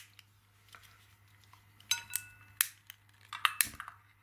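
A long-nosed lighter clicked over and over, a sharp click at the start and about half a dozen more in the second half, one with a brief metallic ring, as it is worked to light an old cake of solid fuel, which catches near the end.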